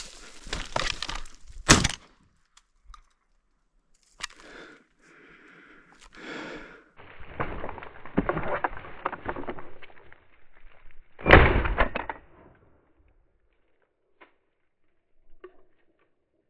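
Two loud, sharp shotgun shots, a short one about two seconds in and the loudest about eleven seconds in with a brief ringing tail, between stretches of rustling movement through brush.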